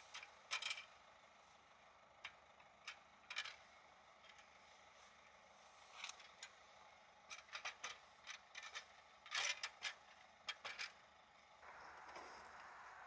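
Scattered small clicks, taps and light scrapes of objects being handled, busiest about three-quarters of the way through. Near the end a steady soft hiss begins.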